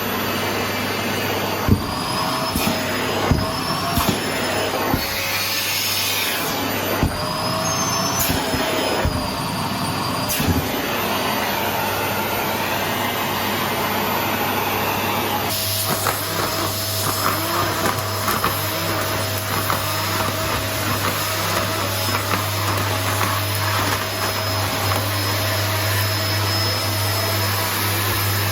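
Paper-bag vacuum cleaner running, its motor whine wavering in pitch, with scattered knocks and clicks through the first third. About halfway through the sound changes and the whine settles into a steady tone.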